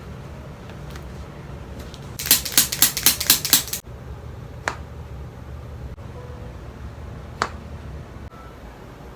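Joints cracking during a manual chiropractic adjustment: a quick run of about ten sharp pops about two seconds in, then two more single pops a second and three seconds later.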